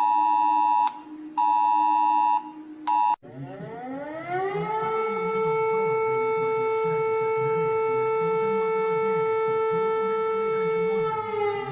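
Emergency-alert two-tone beeps sound in roughly one-second pulses and cut off about three seconds in. A siren then winds up in pitch and holds a steady wail, dipping slightly near the end.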